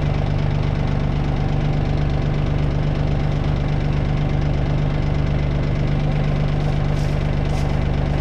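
Kioti CK2610 compact tractor's three-cylinder diesel engine idling steadily.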